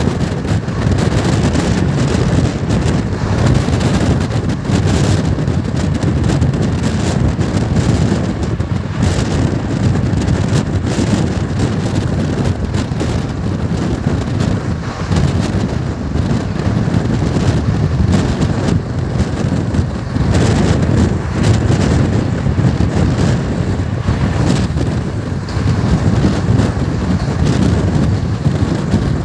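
Steady rumble of a moving passenger train's coaches on the rails, mixed with wind buffeting the microphone at the open door.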